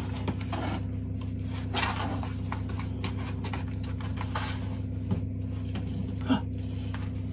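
Plastic privacy window film crinkling and rubbing in short scattered rustles as it is smoothed onto a window pane by hand, with a sharper tap about six seconds in. A steady low mechanical hum runs underneath.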